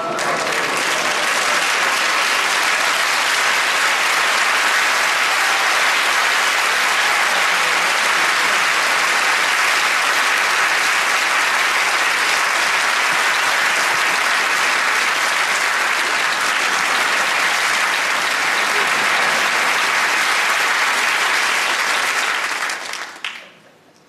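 Large audience applauding loudly, starting all at once and dying away about 23 seconds in.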